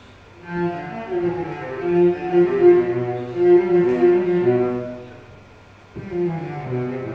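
Low bowed string instruments playing sustained, overlapping notes in a slow phrase. The phrase swells from about half a second in and fades away around five seconds, and a new phrase starts sharply at about six seconds.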